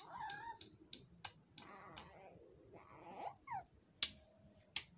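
Hammer driving nails into a wooden pole: a run of sharp knocks, about three a second, then a pause of a couple of seconds before a few more strikes near the end.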